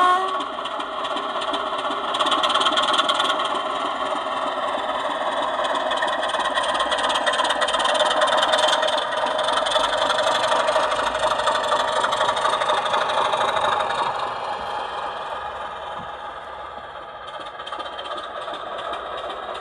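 Sound decoder in a model BR Class 24 diesel locomotive, playing a recorded Sulzer engine through its small on-board speaker. A brief horn note sounds right at the start, then the engine note rises about two seconds in as the loco pulls away. It runs steadily before fading from about fourteen seconds as the model moves off.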